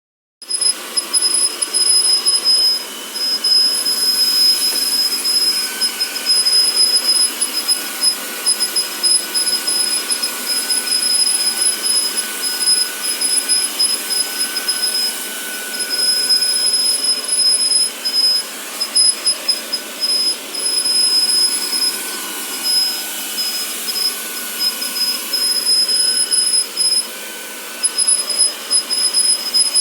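Vacuum cleaner running with a high-pitched squeak over its airflow hiss. The squeal holds steady for stretches and drops out briefly a few times.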